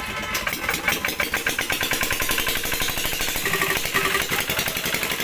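A small engine running with a fast, even firing beat, growing louder in the first second.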